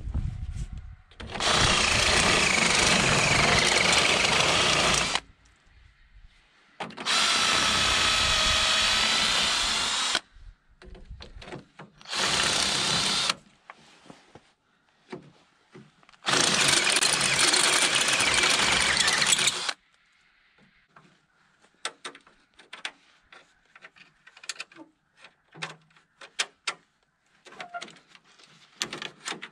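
Cordless drill boring out a bolt hole in a steel bracket to fit a larger bolt, running in four bursts of a few seconds each with short stops between. Light metallic clicks and taps follow near the end.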